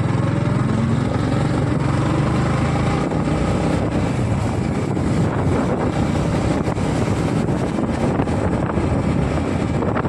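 Motorcycle engine running steadily while riding at low speed on a rough lane, with wind rushing over the helmet-mounted microphone. About three seconds in, the engine's steady note gives way to a rougher, gustier noise.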